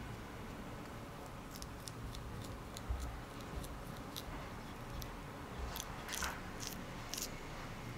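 Small sharp clicks and taps of dough being worked in a hard yakgwa mold: a fork pricking the dough with its tines knocking the mold, a low knock as it is set down about three seconds in, then fingers pressing the dough in, with a few louder clicks near the end.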